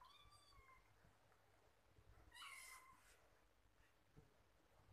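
A cat meowing twice, high-pitched: a short mew at the very start with its pitch dropping slightly, then a louder meow about two and a half seconds in.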